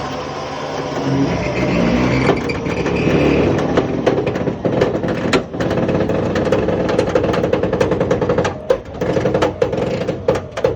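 Hino truck's diesel engine running under load as it pulls in reverse against a winch cable rigged through a block and tackle. Rapid, irregular knocks and clanks join the engine about four seconds in and go on to the end.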